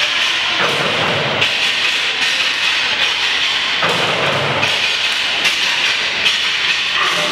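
Sakuting dance sticks clacking against each other and tapping the stage floor in a rhythmic beat.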